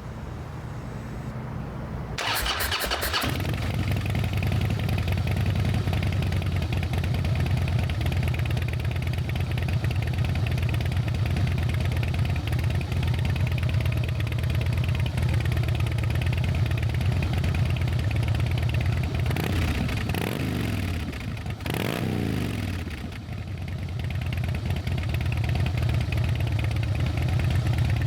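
Harley-Davidson Night Train's V-twin engine is cranked by the starter and catches about two seconds in, then settles into a steady idle through the exhaust. Near the end it is revved twice, the revs falling back to idle each time.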